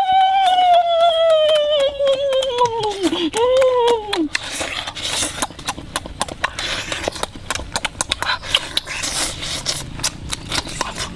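People eating cooked turtle meat with their hands: lots of wet lip-smacking and chewing clicks. In the first four seconds a long high voiced cry slides down in pitch, followed by a shorter second one.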